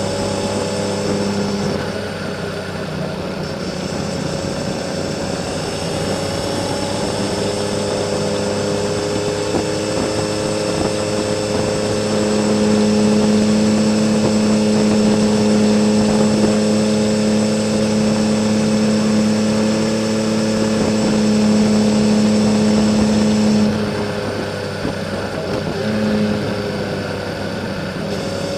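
Honda CBX 1000's air-cooled inline six-cylinder engine running through a Kerker 6-into-2 exhaust, pulling steadily uphill. The note holds steady and grows louder through the middle, backs off about three quarters of the way through, then rises again near the end.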